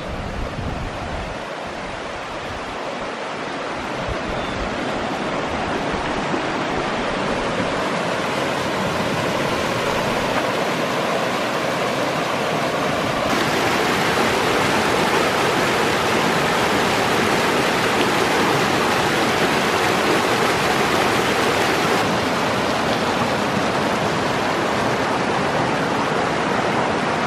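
Rushing stream water, a steady hiss that grows louder over the first ten seconds or so and then holds steady.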